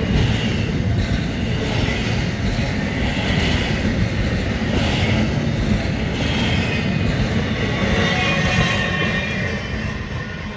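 A freight train's empty intermodal cars rolling past on the rails: a steady heavy rumble with a higher wheel-on-rail ringing that swells and fades about every one and a half to two seconds as each car goes by. It grows fainter in the last second or so as the tail of the train moves off.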